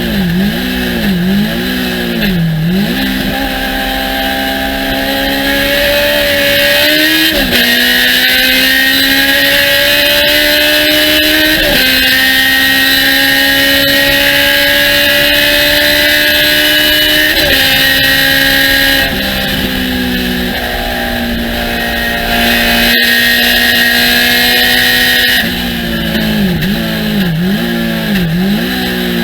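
Thunder Roadster race car engine at racing speed: the revs climb steadily through the gears, falling suddenly at three upshifts, with quick dips and recoveries in pitch near the start and again near the end as the car brakes and downshifts for corners. A steady hiss runs beneath it.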